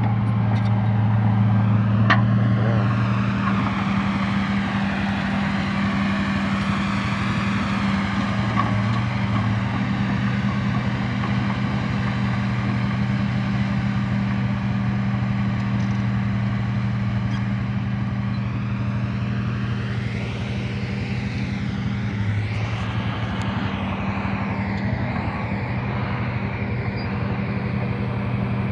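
An engine running steadily with a low drone, its pitch shifting slightly about three-quarters of the way through.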